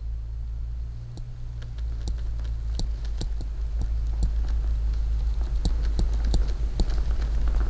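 Irregular light clicks and taps from handling a graphics card's cardboard retail box, several a second, starting about a second in. A steady low hum runs underneath.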